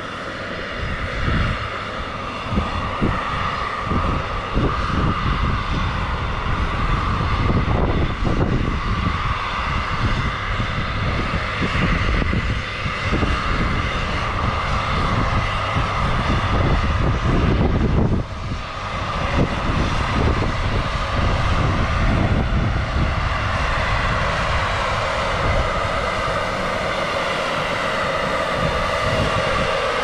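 Hydroelectric power station machinery running: a loud, steady drone with a high whine over a rumble, dipping briefly about eighteen seconds in.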